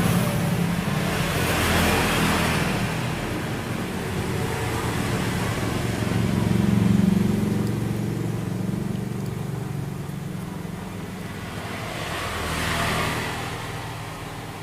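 An engine running steadily, growing louder and softer a few times.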